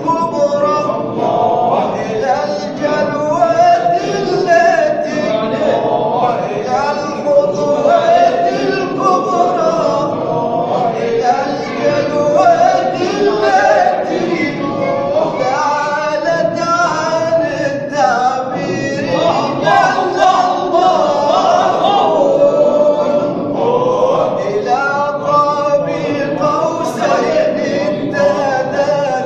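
Sufi devotional chanting (inshad) at a dhikr gathering: men's voices singing together, loud and continuous.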